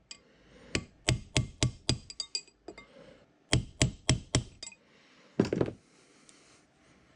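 Hammer blows on a brass drift driving a ball bearing's outer race down into a cast aluminium milling-attachment housing to seat it: two runs of quick, sharp ringing taps, three to four a second. A single louder, duller knock follows about five and a half seconds in.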